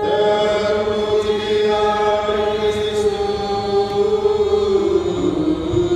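Chanted liturgical response sung right after the Gospel reading: one long held note that drops to a lower pitch about five seconds in.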